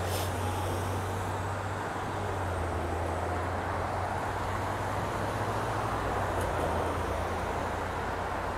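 Street traffic: a steady wash of road noise from passing cars over a constant low hum.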